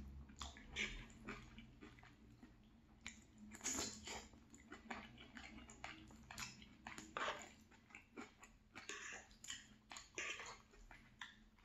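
Close-up chewing and biting of a chicken and vegetable stir fry: faint, irregular crunches and mouth clicks, several a second.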